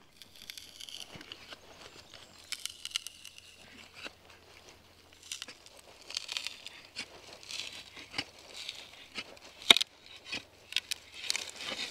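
Dry wood shavings rustling and crinkling as a woodworker handles a thin ash strip at a wooden shaving horse, with scattered small clicks and taps and one sharp knock near the end.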